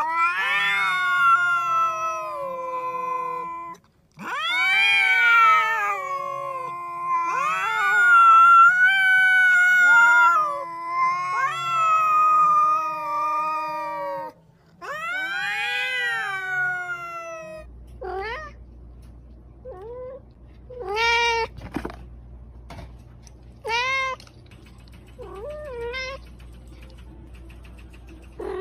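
Two cats caterwauling at each other in long, drawn-out, wavering yowls that often overlap. About two-thirds of the way in, a single cat meows in a series of short, separate calls.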